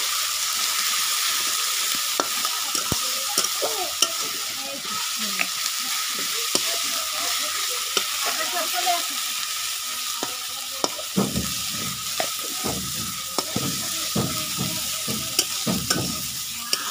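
Chicken and curry masala sizzling in hot oil in a wok, with scattered small pops. From about eleven seconds in, a spatula scrapes and stirs against the pan in repeated strokes.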